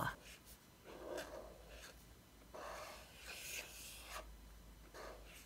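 Faint rubbing of a Tombow Dual Brush Marker's brush tip drawn across paper in several soft strokes as letters are written, with one longer stroke a little past the middle.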